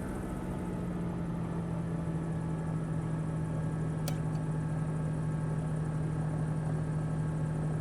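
A steady machine hum holding one low pitch, with a single sharp click about four seconds in.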